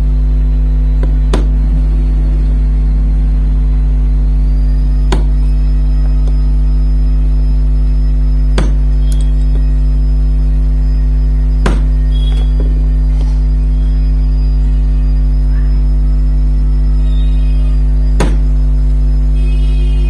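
Loud steady mains hum with about five sharp knocks a few seconds apart, tools striking the table fan's metal motor parts during repair.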